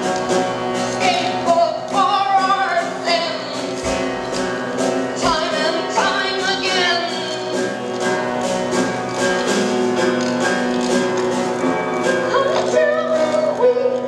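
Upright piano playing a steady repeated pulse of about three strokes a second under held notes, with a woman singing long, gliding notes over it.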